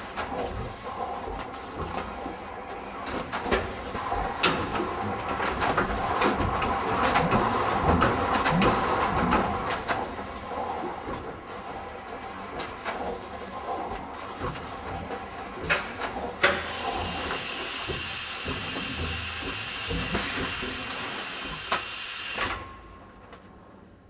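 Highlight Industries Revolver 4820 orbital stretch wrapper running as it wraps wire shelving in stretch film: a steady mechanical hiss and rattle with scattered clicks and knocks. A little over two-thirds through it turns to a brighter, higher hiss, then fades out near the end.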